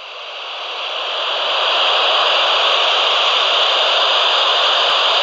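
Steady FM static hiss from a handheld amateur radio transceiver's speaker, swelling over the first couple of seconds and then holding level, with one faint click near the end. It is open-squelch receiver noise, no signal on the channel between transmissions from the International Space Station.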